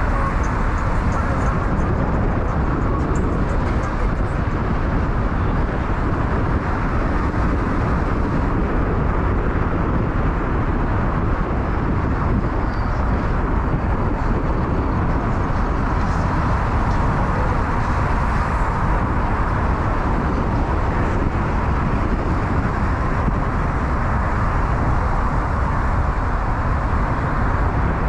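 Steady road noise from a car driving through city traffic: an even, low rumble with hiss above it.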